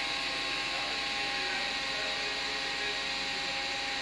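Steady drone of machinery in a railway-sleeper factory hall: an even hiss with a few steady whining tones, unchanging throughout.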